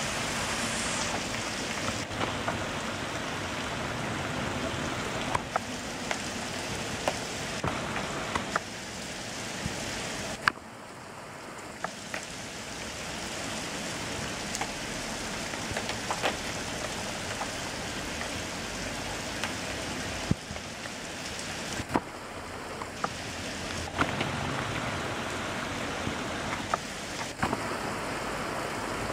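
Heavy rain pouring onto paving and leaves, a dense steady hiss with scattered sharp close drop hits. The hiss dips about ten seconds in and builds again.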